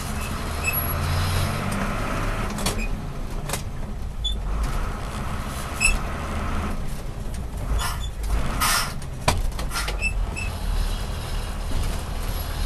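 Engine and road noise inside the cab of a GMC 6000 cab-over moving truck as it drives. Several short sharp noises stand out around the middle.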